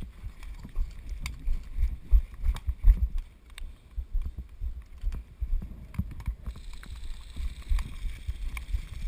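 Footsteps and gear jostling a body-worn camera as an airsoft player walks, heard as uneven low thumps with a few light clicks.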